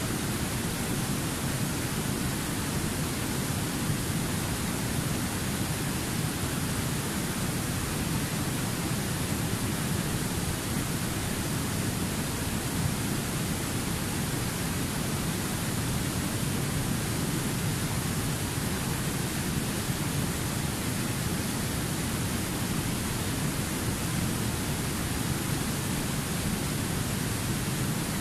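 Fast-flowing river rushing over rocky rapids: a steady, unbroken rush of white water.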